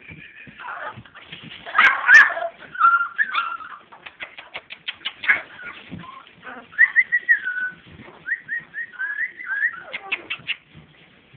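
Six-week-old puppies whimpering and whining in short, high, wavering calls, with the loudest cry about two seconds in. Runs of quick light taps come in the middle and near the end.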